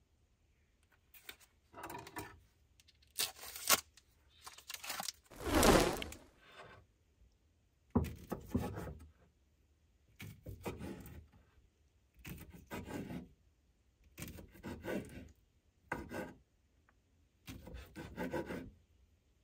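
Plastic food packaging rustling and being torn open, loudest about five to six seconds in. Then a kitchen knife slicing chicken sausage on a wooden cutting board, each cut ending in a light knock on the board, roughly one every couple of seconds.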